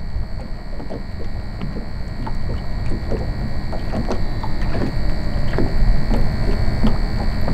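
Small waves lapping and slapping irregularly against the hull of a fishing boat, over a steady low rumble of wind and water. A faint, steady high-pitched whine runs underneath.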